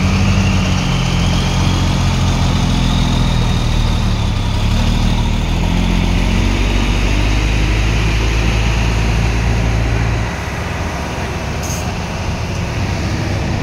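Heavy diesel truck engine idling steadily, a deep low hum that weakens about ten seconds in.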